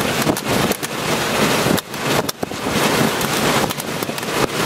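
Strong storm wind blasting the microphone: a loud, ragged rush full of crackles, cut by several brief dropouts.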